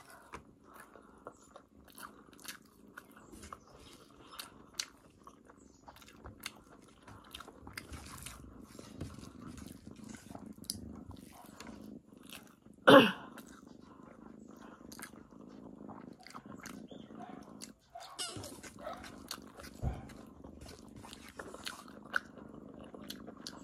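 Close-up chewing and mouth smacking of a person eating rice and curry by hand, many small wet clicks over a low steady murmur. One louder short sound about halfway through.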